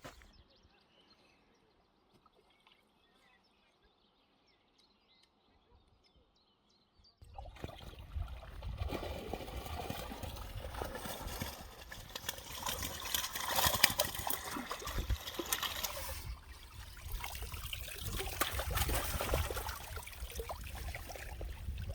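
Water splashing and streaming as a keepnet holding tench and bream is drawn up out of the lake, starting about seven seconds in after a quiet spell and running on as water drains through the mesh.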